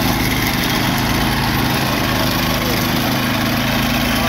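Small petrol engine of a walk-behind sod cutter running steadily while it cuts a strip of zoysia turf.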